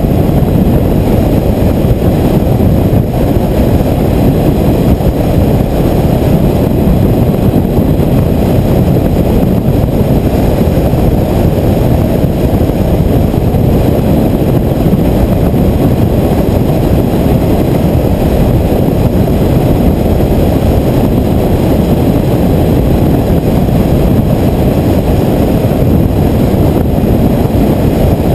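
Steady wind rush over a helmet-mounted camera's microphone at road speed on a Honda ST1300 touring motorcycle, with the bike's engine and tyres underneath. The noise is loud, low and unbroken, with no gear changes or revs standing out.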